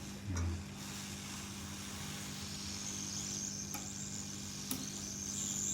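Hot air rework blower running steadily: an even hiss of air over a constant hum, with a higher hiss coming up about three seconds in and a couple of faint ticks. It is heating the solder to free a phone's mouthpiece microphone from the motherboard.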